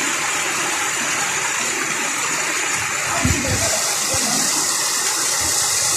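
Steady rushing of running water, with a few short dull low thumps a little past halfway.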